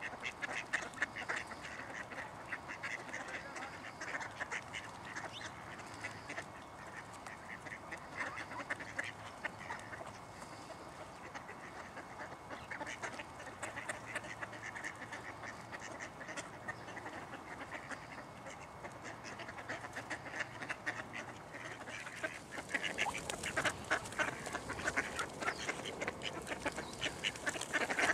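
A flock of mallard ducks quacking and chattering while being fed, the calls coming thick and irregular and growing louder and busier for the last several seconds.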